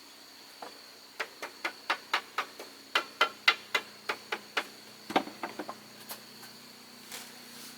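A series of sharp knocks on wood, about four a second for some three seconds, then a quicker burst of lighter taps, like a hammer tapping during wooden wall work. Insects keep up a steady high whine behind.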